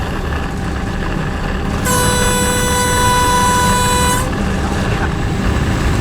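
Diesel locomotive's horn blows once, a single steady tone lasting a little over two seconds, over the steady low rumble of the locomotive running under load up a steep grade.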